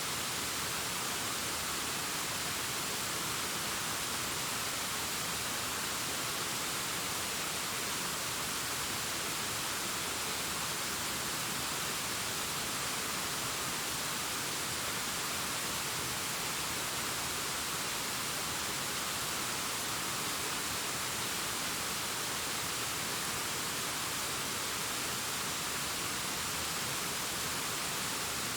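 Waterfall cascading down a rockface: a steady, even rush of falling water, mostly a high hiss with little low rumble.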